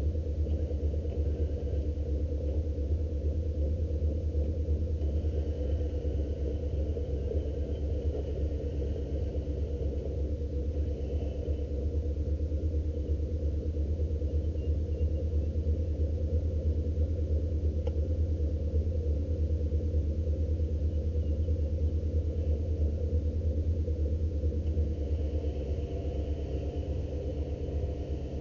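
Truck engine idling steadily with an even low rumble.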